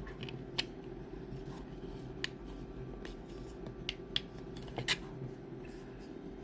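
Hard 3D-printed PLA plastic parts being handled and fitted together: a handful of separate small clicks and taps, the loudest about five seconds in, over a steady low hum.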